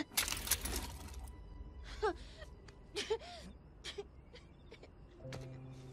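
Young fox cartoon character whimpering and sobbing in short breathy cries that fall in pitch, after a brief scuffing noise at the start. A soft, low sustained music note comes in near the end.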